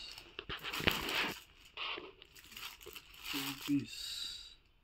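Clear plastic poly bags of packed children's T-shirts crinkling and rustling as they are handled and opened, in several separate bursts.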